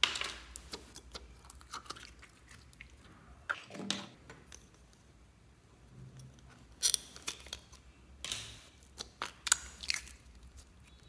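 Small thin plastic slime containers crackling and clicking as hands handle them and flip open their lids, in several short irregular bursts.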